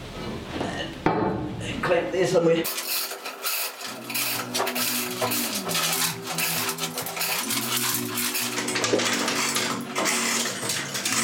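Metal clanking and knocking as a heavy generator is shifted by hand, then the rattling and clicking of a manual chain hoist being hauled to lift it.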